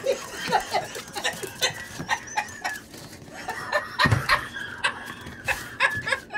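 Miniature Pinscher puppy barking and yapping in play, a rapid run of short high yaps. A thump about four seconds in.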